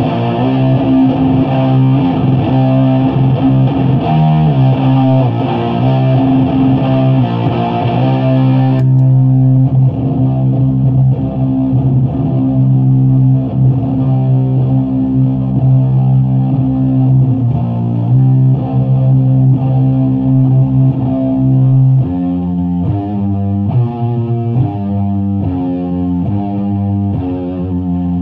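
Electric guitar played through fuzz pedals into a Bridge City Sound Morrison 50-watt amp head and a 6x12 cabinet of Celestion V70 Gold speakers: heavy, sustained distorted chords. About nine seconds in the tone suddenly loses its top end as the pedal setting changes. Near the end the playing turns to a choppier riff with quicker note changes.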